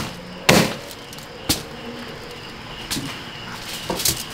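A few sharp knocks of a knife on a cutting board as the roast suckling pig is carved: one about half a second in, another a second later, and a close pair near the end. Behind them there is a faint steady high chirring.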